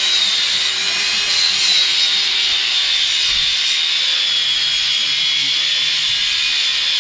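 A power tool running steadily, a continuous high whine over a rushing hiss, with no pause or change in load.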